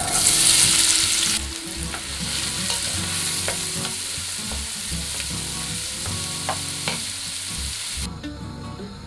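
Chopped onions tipped into hot olive oil in a pot: a loud burst of sizzling that settles into steady frying as they are stirred with a wooden spoon, with a few knocks of the spoon against the pot. The sizzle cuts off near the end.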